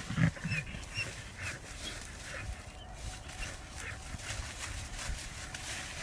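American Pit Bull Terriers digging and scrabbling at a burrow in an earth bank, with many short scratching sounds and a few brief high whines in the first second or so.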